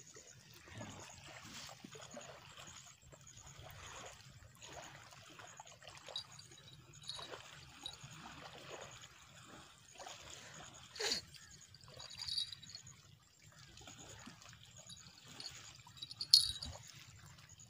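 Small waves lapping and trickling at the water's edge, with a few short sharp clicks, the loudest near the end.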